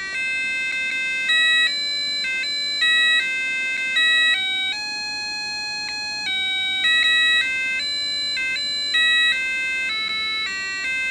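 Cheap cube LED alarm clock's built-in beeper playing an electronic tune on power-up, just after the batteries go in: a melody of held beeping notes stepping up and down in pitch, with one long note in the middle. The tune is not pitch perfect.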